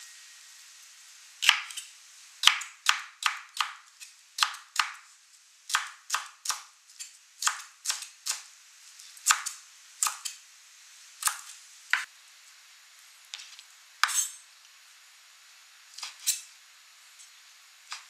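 Chef's knife chopping celery on a wooden cutting board, then slicing dried shiitake mushrooms near the end: sharp, irregular knocks of the blade on the board, one or two a second with short pauses.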